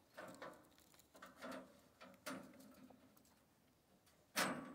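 A few light knocks and clatters of things being handled, with one sharper, louder knock near the end.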